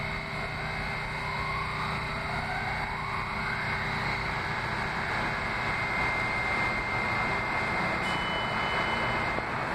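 A Kawasaki R68A subway train approaching along the track, with a steady rumble of wheels on rail that grows slowly louder. Faint rising whines come in the first few seconds, and a high steady squeal runs through most of it, joined by a second, higher squeal near the end.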